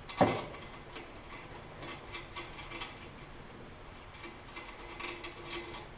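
A sharp metal knock just after the start, then light, scattered metallic clicks and clinks with a faint ring, from work on the lathe drive's steel stud as it is bent back to shape.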